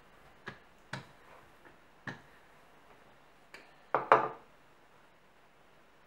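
Wooden rolling pin knocking lightly on the countertop while pie dough is rolled out, a few separate knocks, then a louder double clunk about four seconds in as the pin is put down on the counter.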